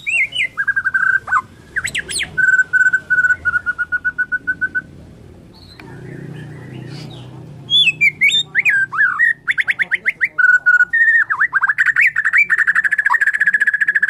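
White-rumped shama singing: clear whistled notes and sweeping phrases broken by fast, even trills of repeated notes, with a pause of about two seconds in the middle and a long rapid rattle near the end.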